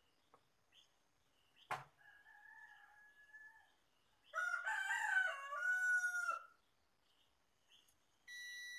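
A rooster crows once, loud and about two seconds long, a little past the middle, after a fainter, steadier call a couple of seconds earlier; faint bird chirps run underneath. Near the end a digital multimeter on its continuity setting starts a steady high beep as the probes find a closed circuit.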